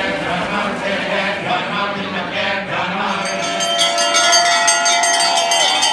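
Priests chanting Vedic mantras in unison. About three seconds in, a hand bell starts ringing rapidly and a sustained high piping note joins, bending in pitch near the end, as for the lamp offering at the climax of the abhishekam.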